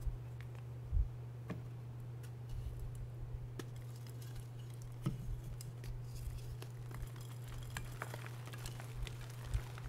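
Reformed gym chalk being snapped and crumbled by hand: dry, crunchy cracks and crackles as a chalk disc breaks in half and chunks crush between the fingers, with two dull thumps, one about a second in and one near the end. A steady low hum runs underneath.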